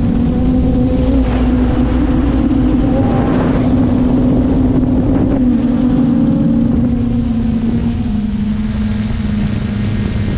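Drone's motors and propellers humming steadily in flight, a loud buzz over a rush of air noise; the pitch sinks slightly about eight seconds in.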